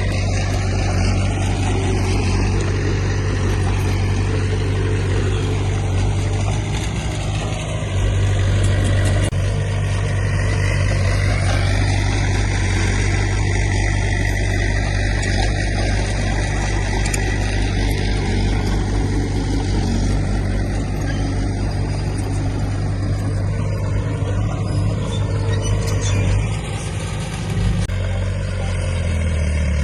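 Diesel engine of heavy earthmoving equipment running steadily under work, a continuous low engine drone with clatter and noise above it. The engine note dips briefly and shifts near the end.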